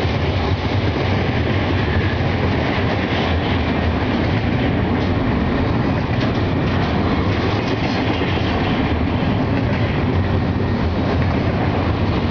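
Double-stack intermodal container train's well cars rolling past, a steady, unbroken noise of steel wheels on rail.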